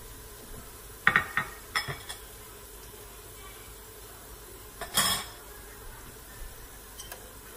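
Oil sizzling steadily in a pressure cooker where golden-brown fried onions and whole spices are being fried. A few sharp clicks and clinks come about a second in, and a louder one about five seconds in.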